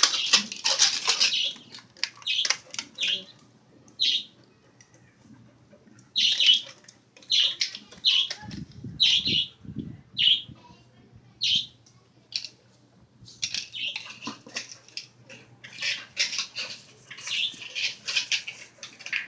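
Pit bull puppy playing with a toy: a run of short, irregular rustling scuffles, with a few low thuds about nine seconds in.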